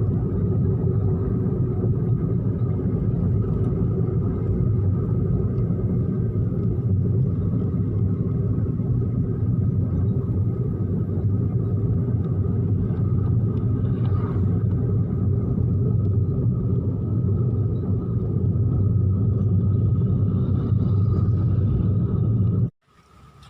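Steady low rumble of a moving motor vehicle, with a faint steady hum, cutting off abruptly near the end.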